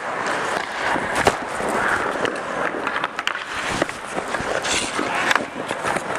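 Ice hockey play close to the net: skate blades scraping and carving on the ice, with sharp clacks of sticks and puck, the loudest about a second in.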